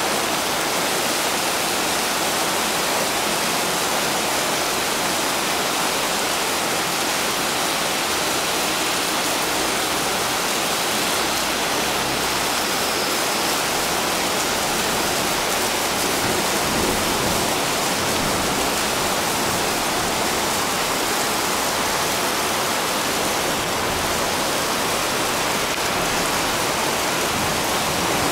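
Heavy rain downpour in a thunderstorm: a dense, steady hiss of rainfall.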